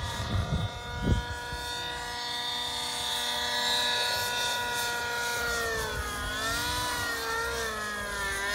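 Radio-controlled model helicopter flying, its rotor and motor giving a steady whine that wavers up and down in pitch from about five and a half seconds in as the head speed changes in manoeuvres. A brief low thump about a second in.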